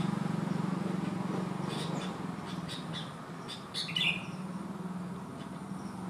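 Sooty-headed bulbul giving short chirping calls, a few between about two and four seconds in, the loudest near four seconds. A steady low hum runs underneath.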